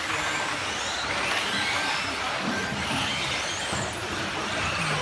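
Radio-controlled electric buggies racing on an indoor carpet track: high motor whines rising and falling as they speed up and slow down, over a steady noise of the cars running.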